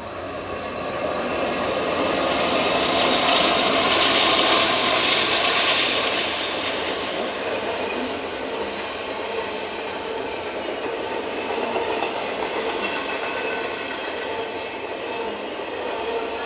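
Double-stack intermodal container freight train rolling past on the rails. The noise builds over the first couple of seconds, is loudest around four to five seconds in, then settles into a steady rumble and rattle of wheels on track as the container well cars go by.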